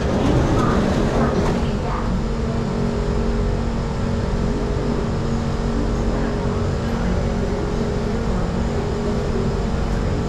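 Singapore Circle Line MRT train standing at a station with its doors open: a steady hum of the train's running equipment and air-conditioning. A rush of noise in the first second or two comes as the doors slide open.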